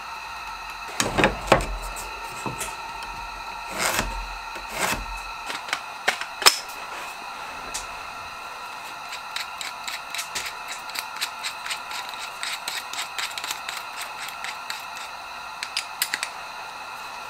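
A few knocks and thuds of tools being handled in the first seconds, then a long run of quick small clicks as the keyless chuck of a DeWalt cordless drill is twisted by hand to grip a drill bit. A faint steady high hum runs underneath.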